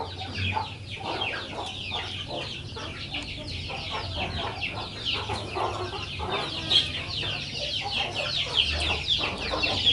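Chickens peeping: many quick, high, falling calls overlapping one another without pause, over a low steady hum.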